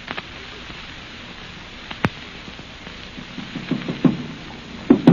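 Steady hiss and crackle of an old radio transcription, with one sharp click about two seconds in. From a little past the middle come hollow knocks, a few at first and then a quick, louder run near the end: a sound-effect knock at a door.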